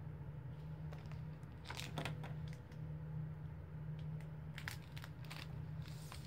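Large hardcover picture books being handled: rustles and light knocks as one book is swapped for another about two seconds in, and again around five seconds as they are lowered, over a steady low hum.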